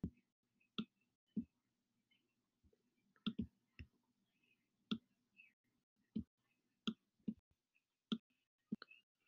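Stylus tapping and clicking on a tablet screen during handwriting: about a dozen short, sharp clicks at irregular intervals.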